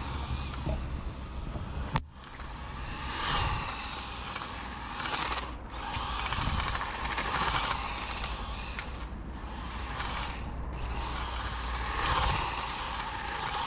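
Micro 1/28-scale electric RC drift car running, its small motor and gear drive whining in surges as it speeds up and eases off. The sound breaks off sharply several times.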